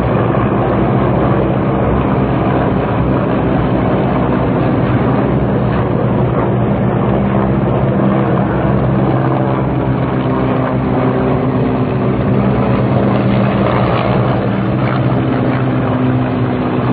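A group of military helicopters flying overhead: a loud, steady drone of rotors and engines with a low hum running through it.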